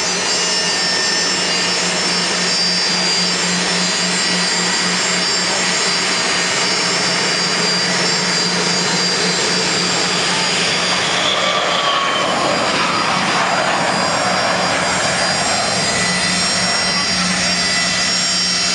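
Gulfstream IV's twin Rolls-Royce Tay turbofans at takeoff power: steady, loud jet noise with a high whine. About eleven seconds in, the pitch falls as the jet lifts off and passes.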